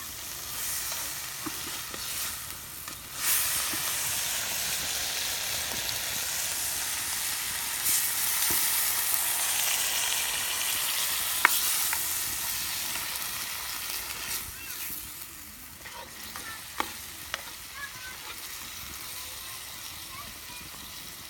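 Green beans sizzling in a hot frying pan, a steady hiss that jumps up suddenly about three seconds in and dies back after about fourteen seconds. A few light clicks are heard, the sharpest about eleven seconds in.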